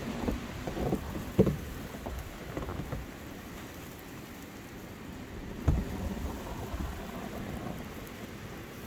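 Strong gusty wind buffeting the microphone in uneven surges, with two low knocks, one early and one just past the middle.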